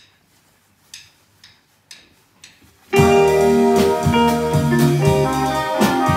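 A few faint clicks, then a band comes in together about three seconds in, playing jazz with drums.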